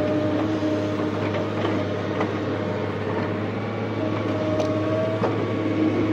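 JCB JS175 excavator running, heard from the cab: a steady diesel engine hum with a hydraulic whine that comes and goes as the boom swings and the bucket dumps soil into a truck and returns to dig.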